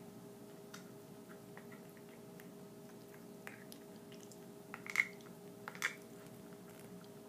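A pet's teeth making a crunching, clicking sound: scattered faint clicks, with two louder crunches about five and six seconds in.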